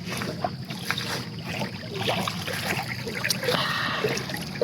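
Steady wash of lake water and wind at the shore, with no clear single event.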